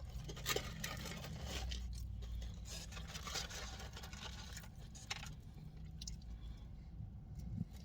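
Soft scraping, rustling and small clicks of fries and cheese being handled and eaten from a takeout container, scattered irregularly over a low hum.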